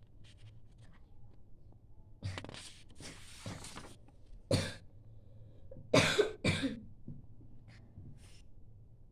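A person coughing: a single cough about four and a half seconds in, then two coughs close together about six seconds in.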